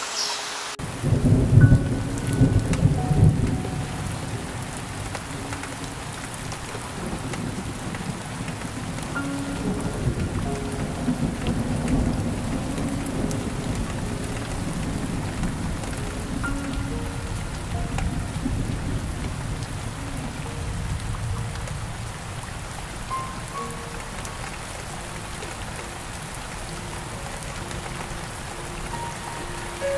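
Rain falling steadily, with thunder rumbling. A heavy rumble starts suddenly about a second in and is loudest over the next few seconds. After that, lower rolling rumbles continue under the rain.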